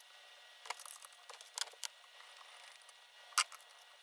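A few sharp clicks and taps of small tools and parts being handled on a sewing machine under service, the loudest about three and a half seconds in.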